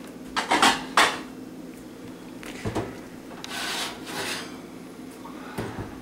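A few sharp clacks, then the oven door opening and a metal baking sheet scraping as it slides out along the oven rack.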